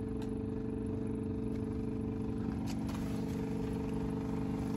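An engine idling steadily: an even low hum with several steady tones.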